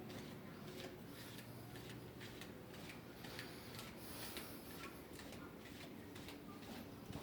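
Faint, irregular light clicks and ticks over a low, steady hum.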